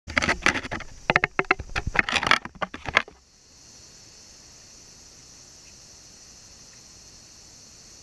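Close, loud knocking and clattering for about three seconds, which stops suddenly. Then a steady high-pitched drone of insects in the trees.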